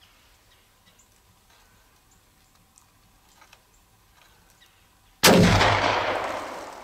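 A single gunshot about five seconds in: a sudden loud blast that fades away over about a second and a half.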